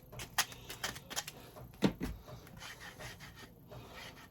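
Light workshop handling of wooden chair parts and tools: a few scattered clicks and one sharper knock about two seconds in.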